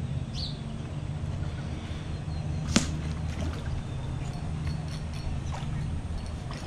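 A single short, sharp blowgun shot about three seconds in, over a steady low hum.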